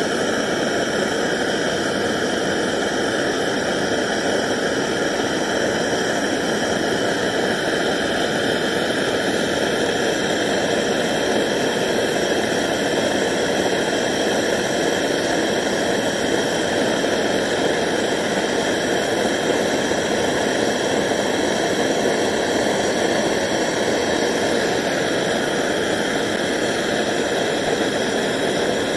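Handheld gas blowtorch burning steadily, an even rushing hiss that stays constant throughout. The flame is heating silver powder and borax flux in a small crucible to melt it.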